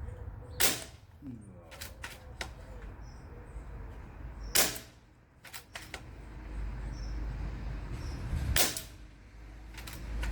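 Air rifle shots, three of them about four seconds apart, each followed by lighter clicks and knocks of pellets striking and tipping the metal reactive targets.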